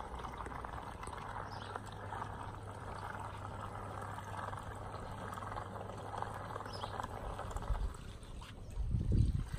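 Zodiac CyclonX 4400 robotic pool cleaner working at the waterline, churning the surface: a steady splashing trickle of water over a low steady hum, both dropping away about eight seconds in. Near the end, low uneven rumbling.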